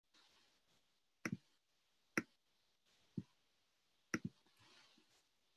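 Sharp clicks at roughly one-second intervals, some single and some in quick pairs, over otherwise near-silent room tone.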